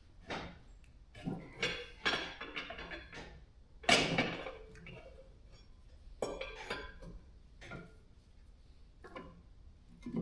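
Metal parts and tools clinking and clanking as they are handled during the engine teardown, a series of irregular sharp knocks with a short ring, the loudest a little under four seconds in.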